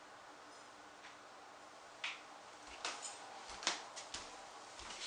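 Footsteps of a person walking across a room: irregular light knocks and clicks starting about two seconds in, after a quiet start.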